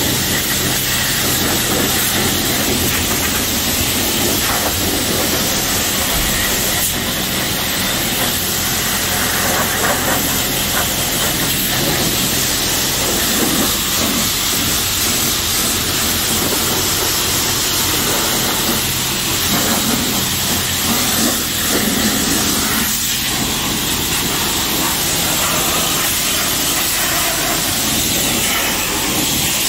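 Pressure-washer wand spraying a high-pressure jet of water against a pickup's tyre, wheel well and body panels: a steady loud hiss, with a low steady hum underneath.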